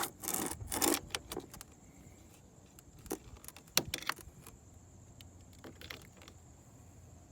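Spring-loaded metal jumper clamps of a portable jump starter clicking and rattling as they are clipped onto the car battery's terminals. A quick cluster of clicks comes in the first second and a half, then a few single sharp clicks around three to four seconds in.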